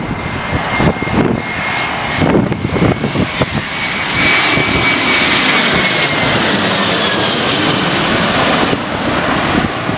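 Twin-engine jet airliner on final approach, landing gear down, passing low overhead. Its engine noise and whine build to a peak about six to seven seconds in, then the whine drops in pitch as it passes.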